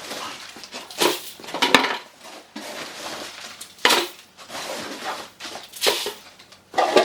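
Plastic feed scoop digging into and pouring dry horse feed into a bucket: about five sharp clatters a second or two apart, with a grainy rustle of feed between them.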